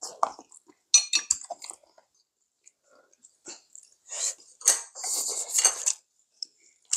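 Metal tongs clinking against a serving pan and small bowls as spicy chicken feet are picked up, mixed with close-up eating sounds. The sounds come in two clusters, about a second in and again from about four to six seconds, with a quiet stretch between.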